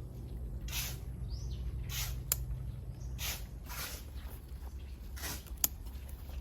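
Repeated rustling swishes, roughly one every second and a bit, with two sharp clicks and faint bird chirps over a low steady hum.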